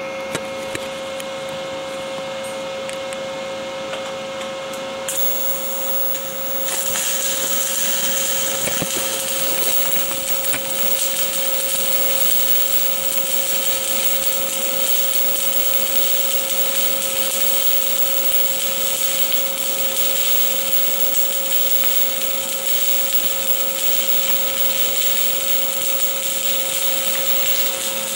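Stick-welding arc on stainless steel, a vertical-up cover pass, burning with a steady crackling hiss over a constant hum. The hiss grows louder about six seconds in.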